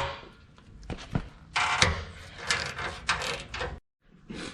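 Metal hand tools clicking and clattering in several short bursts as they are worked on exhaust bolts. The sound cuts off suddenly near the end.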